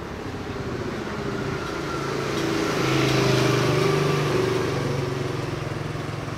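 Motor scooter engine passing close by on the street. It grows louder to a peak around the middle, then eases off a little.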